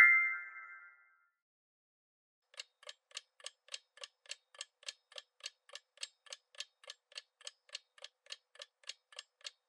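Clock-tick sound effect counting down the answer time, even ticks at about three and a half a second that start a couple of seconds in. The tail of a chime dies away at the very start.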